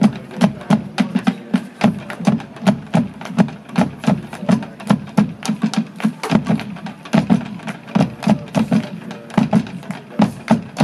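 Marching band drums playing a percussion feature: quick, uneven rhythmic drum strokes with strong low drum hits and no horns sounding.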